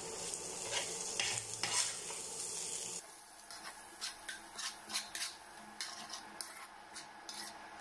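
A steel spoon stirring and scraping cooked rice around a hot frying pan in irregular strokes, with a light sizzle of oil underneath. The background hiss drops about three seconds in.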